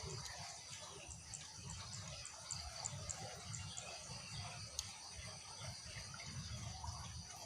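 Steady high-pitched insect chorus, with a run of short, evenly spaced high chirps between about one and three and a half seconds in, over a low rumble and one sharp click near the end.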